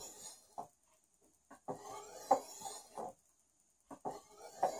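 Steel cleaver blade stroked across a fine bonded oilstone: rasping scrapes in separate strokes with short quiet gaps, the longest about two seconds in and another starting near the end. This is the fine honing of an edge that has already been sharpened.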